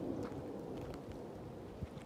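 Tabby kittens eating from a small food bowl: faint scattered clicks of chewing over a steady low rumble, with a single soft thump near the end.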